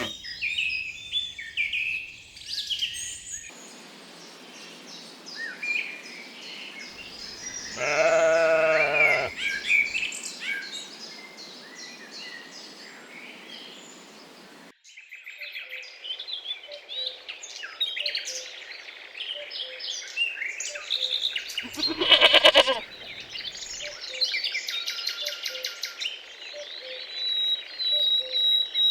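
Lambs bleating twice, a long wavering bleat about eight seconds in and a shorter one about twenty-two seconds in, over continuous songbird chirping.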